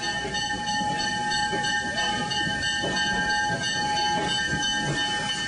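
Train running, with a steady high whine of several held tones over an irregular rumbling noise.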